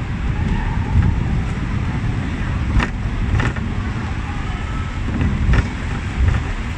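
Hong Kong double-decker electric tram running along street rails, heard on board: a steady low rumble from the wheels and running gear, with a few sharp knocks and rattles.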